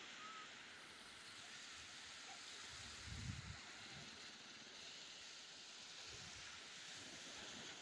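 Faint, steady wash of small waves lapping on a sandy beach, with two brief low rumbles about three and six seconds in.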